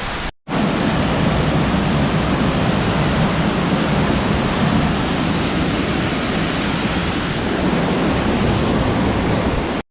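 Steady rush of a waterfall, a dense, even roar of falling water, broken by a brief dropout about half a second in.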